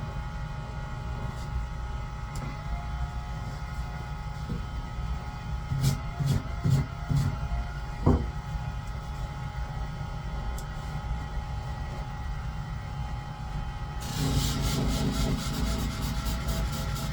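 Typhoon shear-sharpening hone running with a steady hum and a few knocks about six to eight seconds in. About fourteen seconds in it gets louder with a fast repeating rasp, metal rubbing on the spinning hone.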